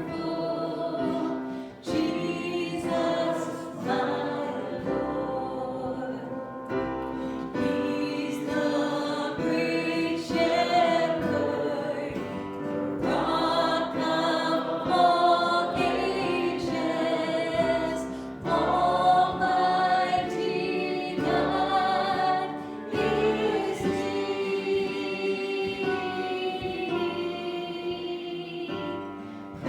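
A church congregation singing a hymn together in sustained, harmonised lines.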